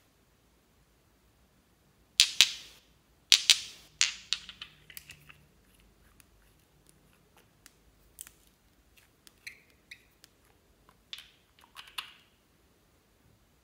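Small plastic bottles and toy containers handled in the hands over a bowl of slime: a series of short plastic clicks and scrapes. Three louder ones come close together a few seconds in, and fainter ones follow at uneven intervals.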